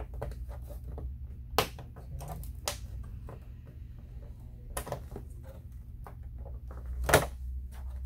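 Plastic snap clips of a Toshiba LX835 all-in-one's rear cover popping loose as the cover is pried apart with a plastic pry tool. Several sharp clicks, the loudest about seven seconds in.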